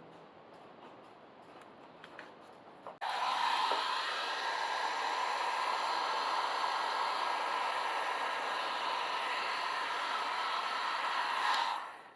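A steady rushing noise like an electric blower. It switches on suddenly about three seconds in, runs evenly, and dies away near the end, after a few faint handling clicks at the start.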